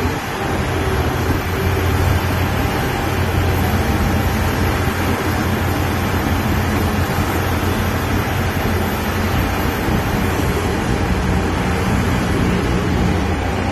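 Rubber-tyred gantry crane's machinery running steadily with a low hum while its hoist lifts a container on the spreader.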